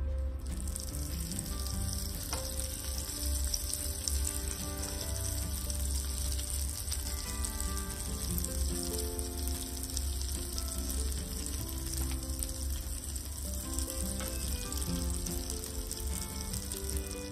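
Butter sizzling steadily as it melts and bubbles in a hot nonstick frying pan, a dense frying hiss, with soft background music underneath.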